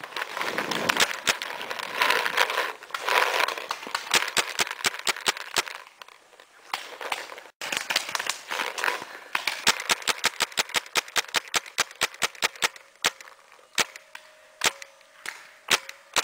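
Paintball markers firing: a long run of sharp pops, often several shots a second and at times in quick volleys, with a rustling hiss under them in the first few seconds.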